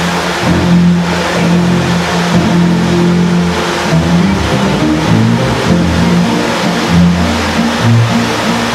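Ground fireworks, upright fountains and spinning wheels of sparks, burning with a steady hissing rush. Music with sustained low notes that change pitch every second or so plays under it.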